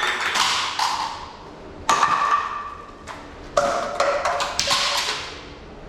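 A person's loud, staged coughing fit: bouts of sharp coughs, a few coughs per bout, about a second and a half apart, each cough ringing briefly in the room.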